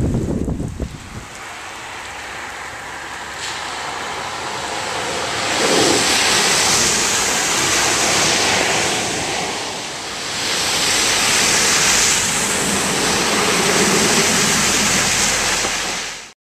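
Loud rushing and spraying floodwater noise, swelling twice and then cutting off abruptly near the end.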